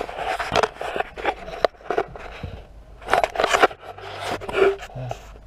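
Camera handling noise in a vehicle cab: the camera scraping, rubbing and knocking against hands, clothing and the console, in irregular scratches and clicks.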